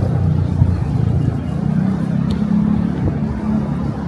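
A motor vehicle engine running close by with a steady low hum, over street traffic noise.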